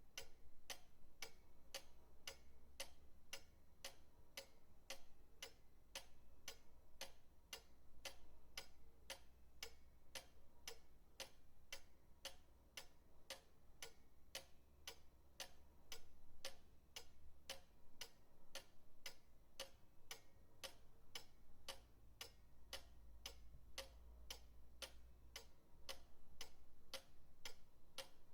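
Pendulum clock ticking steadily, about two ticks a second, over a faint low hum.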